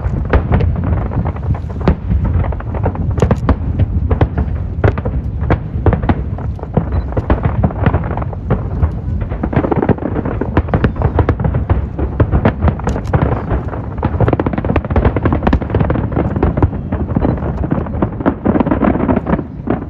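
Aerial fireworks display going off in a dense, continuous barrage: many rapid, overlapping bangs and cracks over a deep rolling rumble.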